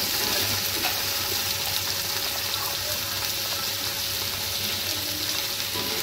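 Onions, tomatoes and green chillies sizzling steadily as they fry in hot oil in a pot.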